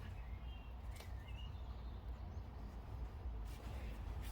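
Faint outdoor background with a steady low rumble, a few short bird chirps in the first half and a faint click about a second in.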